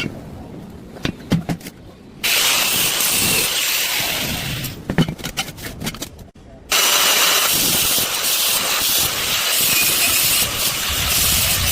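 Stick-welding arc hissing and crackling in two runs, each starting abruptly: one about 2 seconds in, then a second, longer run about 7 seconds in, with a few clicks and knocks between them.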